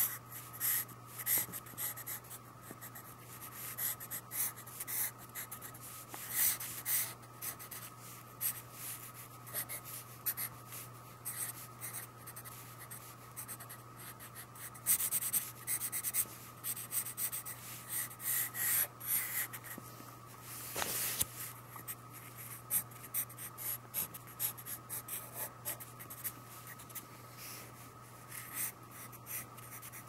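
Pencil sketching on paper: many quick, irregular scratchy strokes of the pencil lead across the sheet, one a little stronger about two-thirds of the way in. A steady low hum runs beneath.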